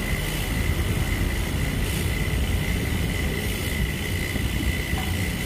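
A steady low rumble with a thin, steady high tone above it.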